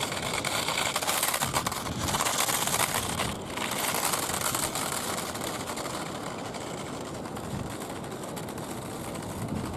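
1:24 Maisto Hummer HX Concept RC car driving, its small motor and gears whirring with tyre noise; louder for the first few seconds with a brief break about three and a half seconds in, then lower and steady.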